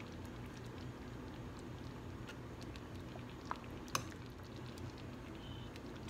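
Pot roast in thickened gravy simmering in a stainless pot, faint and steady. A fork gives two light clicks against the pot about three and a half and four seconds in.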